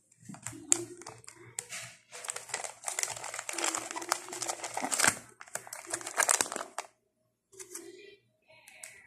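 Plastic vacuum-sealed sausage packs crinkling and crackling as they are handled, in irregular bursts with sharp clicks, heaviest from about two to seven seconds in, then briefly going quiet.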